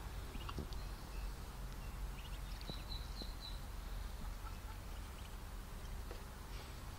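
Muscovy ducklings peeping in short, faint, high chirps, with a quick run of peeps a little before the middle, over a steady low background rumble.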